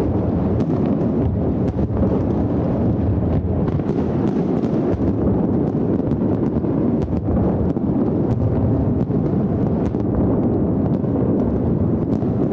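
Fireworks finale barrage: many shells bursting in quick succession, their booms running together into a continuous rumble with many sharp cracks scattered through it.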